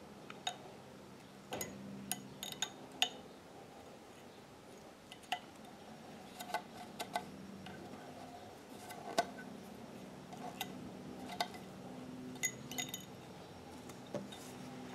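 Scattered light metallic clicks and ticks, about fifteen at uneven intervals, as fingers work thread through the needle-bar thread guide and needle of a Singer 241-12 industrial sewing machine. A faint steady low hum runs underneath.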